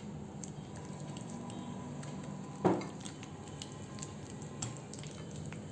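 Hand wire whisk beating softened butter in a glass bowl: soft squishing with light clicks of the wires against the glass, and one louder knock about two and a half seconds in.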